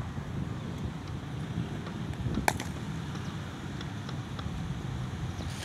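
A single sharp crack of a cricket bat striking the ball, about two and a half seconds in, over steady wind noise on the microphone.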